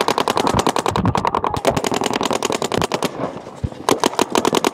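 Paintball markers firing rapid strings of shots, about a dozen a second. The shooting thins to scattered single shots about three seconds in.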